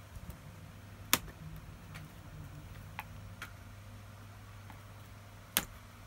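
Sharp clicks and taps from hands handling the disassembled laptop's case and metal keyboard plate: two loud clicks, about a second in and near the end, with a few fainter ticks between, over a steady low hum.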